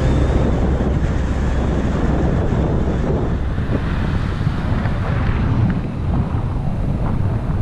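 Wind buffeting the microphone of a camera on a vehicle in motion, a steady rushing rumble with the vehicle's running and road noise underneath.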